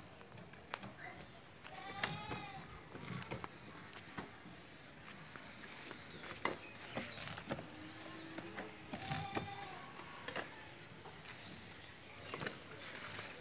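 Goats bleating in a few short calls, about two seconds in and again near nine seconds. Under them a backpack sprayer's nozzle hisses faintly, with scattered light clicks.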